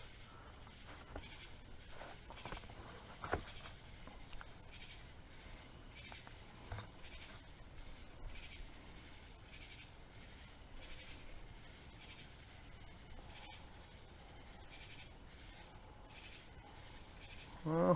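Faint chirping of evening insects, crickets or katydids, pulsing in a steady rhythm about once or twice a second, with a couple of light knocks.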